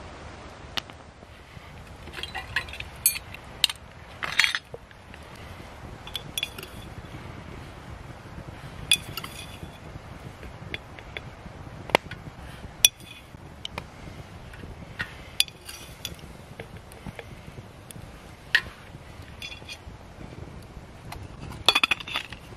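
Wood fire crackling with scattered sharp pops under a hanging metal camp kettle, and metallic clinks from the kettle and its wire bail handle in a few clusters: about two to four seconds in, around nine seconds, and near the end.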